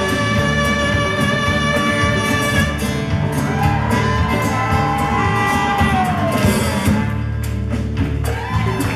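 Live blues-rock band playing: electric guitar, bass and drums, with saxophone and fiddle in the lineup.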